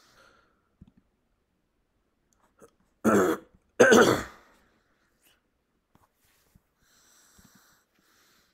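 A person coughing twice in quick succession, two loud harsh coughs about three seconds in; the rest is near quiet with a few faint ticks.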